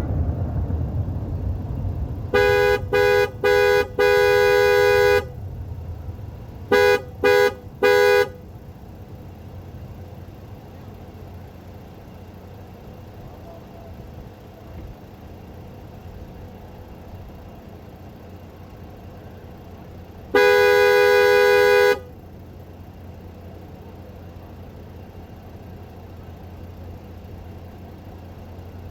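A car horn honking: three short toots and a long blast, then three more quick toots, and about twenty seconds in one more long blast, all at the same pitch, over a low steady rumble. Honking like this is the usual salute from parked cars when a fireworks show ends.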